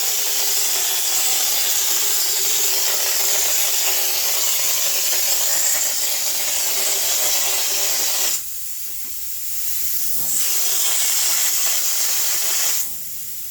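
Compressed-air spray gun hissing in a long steady blast as liquid is sprayed onto the truck's frame. It cuts off about two-thirds of the way through, starts again a second or two later, and stops once more near the end.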